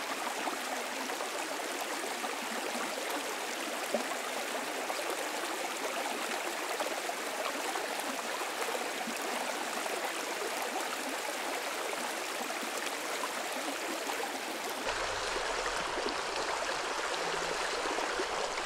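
Shallow river flowing over a cobble bed: a steady rush of running water, with a faint low rumble joining about fifteen seconds in.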